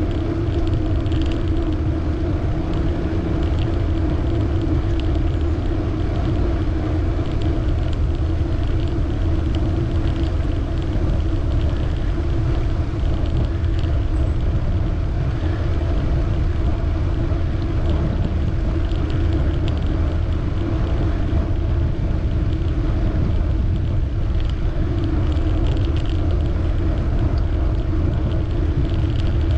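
Steady rumble of wind on the microphone and tyre noise from a bicycle being ridden, with faint light ticks now and then.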